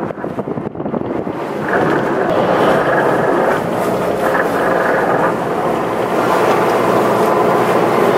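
Engines of a 45-foot Cabo sportfishing boat running at idle alongside the dock, with wind buffeting the microphone.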